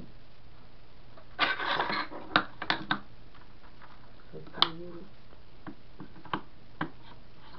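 Handling noise close to the microphone: a brief rustle of clothing, then a few scattered sharp clicks and knocks, over a faint steady low hum.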